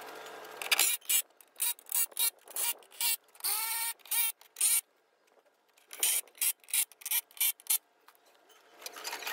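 Cordless power wrench run in short trigger bursts, one longer run with a rising whine, tightening the mounting bolts of an electric-car battery pack from underneath.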